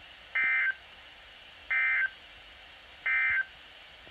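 Emergency Alert System end-of-message signal: three short, identical bursts of buzzing two-tone SAME digital data, each about a third of a second long and about a second and a half apart, over a faint hiss. The three bursts mark the end of the alert.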